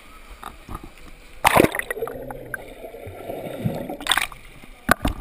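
Pool water splashing and sloshing around the camera as a freestyle swimmer passes. There is a loud splash about one and a half seconds in, then a muffled underwater gurgle with the microphone submerged, another splash near four seconds, and a sharp knock just before the end.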